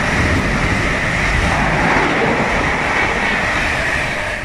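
A Class 90-hauled express of Mark 3 coaches and a driving van trailer running through the station fast, a loud steady rush of wheels on rail and air from the passing carriages.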